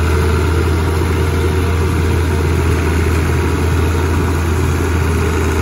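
White 2-105 tractor's diesel engine running steadily: a loud, even drone with a deep hum, no change in speed.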